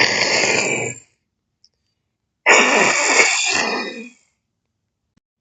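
A person making two long, rasping throat noises, each lasting about a second and a half, the second coming about two and a half seconds after the first.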